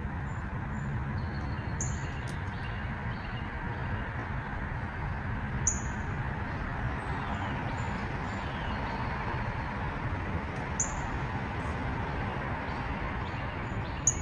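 Steady outdoor background noise with faint bird chirps and four sharp ticks, each a few seconds apart.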